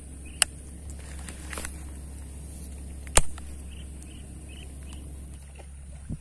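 Sharp clicks from a baitcasting reel being handled, three in all: one about half a second in, a louder one about three seconds in, and one near the end. Under them runs a steady low rumble and a faint, steady high hiss.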